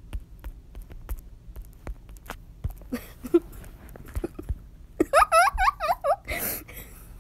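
Light clicks and taps of typing on a phone's touchscreen keyboard, then, about five seconds in, a run of quick, high, squeaky rising cries and a short burst of noise.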